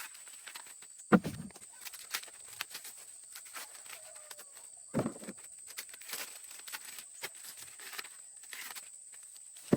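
Rustling and light crackling, with three dull thumps about four seconds apart, the first the loudest, over a steady high-pitched whine.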